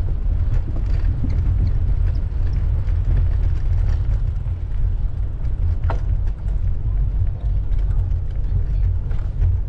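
Wind rumbling on the microphone of a camera riding along on a moving bicycle: a loud, steady low rumble, with one short click about six seconds in.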